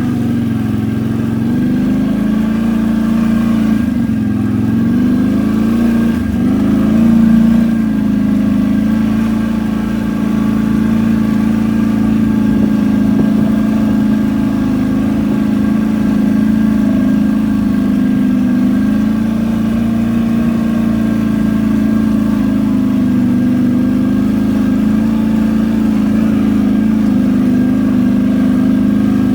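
ATV engine running at a fairly steady speed. Its pitch dips and rises briefly a few times in the first seven seconds, then holds even.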